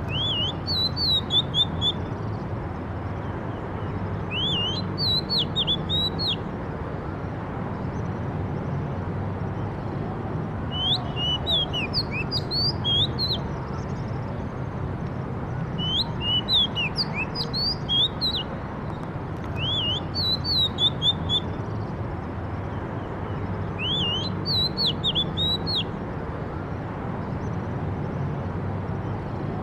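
A songbird singing short phrases of quick, high chirps, a phrase every four seconds or so, over a steady low background rumble.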